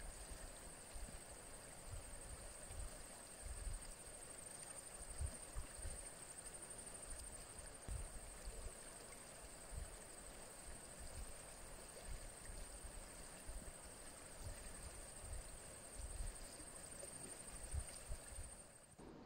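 Faint sound of a shallow river running over stones, with wind buffeting the microphone in irregular low thumps and a steady high-pitched whine over the top.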